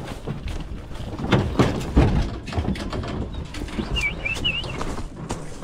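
Rustling and crackling of leafy branches brushing and scraping close to the microphone, with irregular knocks. A small bird chirps briefly about four seconds in.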